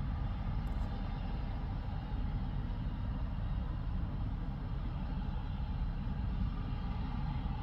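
Distant air ambulance helicopter running its engines during start-up: a steady low rumble with a faint steady whine above it.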